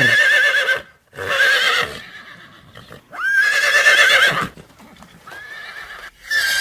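A horse whinnying repeatedly: four loud, shrill whinnies with a quavering pitch and short pauses between them.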